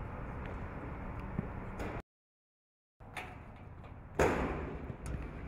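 Steady outdoor background noise that drops out to silence for about a second, then a sharp, loud thump about four seconds in: a football being kicked.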